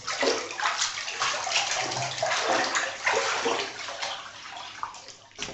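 Water splashing and sloshing in irregular surges.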